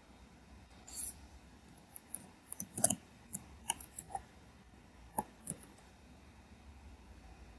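Computer keyboard keys clicking as a word is typed: a quick, irregular run of about a dozen keystrokes from about two seconds in to about five and a half seconds in.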